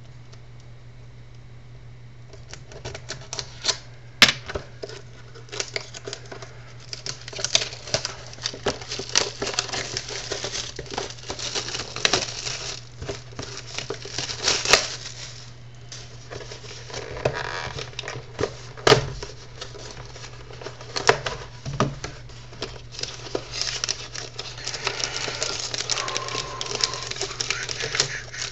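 Sealed trading-card box and foil packs being torn open and handled, a dense run of irregular crackling and crinkling that starts a couple of seconds in. A steady low hum runs underneath.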